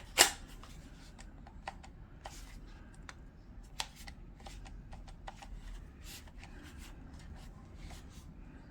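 Hands handling a cordless chainsaw's battery and charger: scattered light clicks and rustles, with one sharper click about a quarter of a second in.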